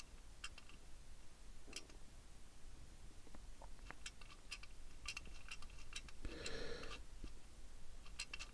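Faint, scattered small clicks and taps from handling a plastic-and-metal toy car while its comic-strip slide viewer is advanced.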